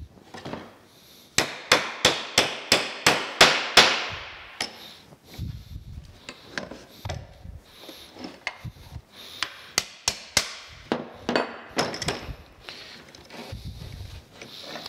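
Copper-headed hammer tapping on the steel valve rod and valve stem joint, about eight quick taps in a row a second and a half in. Lighter metallic clinks and knocks follow as the steel rods are handled and moved on the bench.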